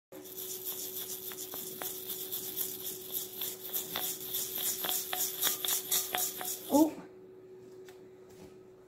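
Dry grains rattling inside a glass mason jar shaken hard and fast, with a small ball buried in them. The shaking stops about seven seconds in, just after a brief voice sound, leaving only a few faint clicks.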